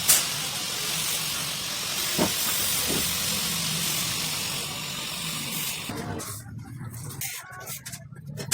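Steady hiss that breaks up and stops about six seconds in, with two light knocks about two and three seconds in.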